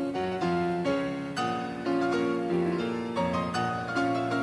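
Instrumental background music on piano, a steady flow of notes about two a second.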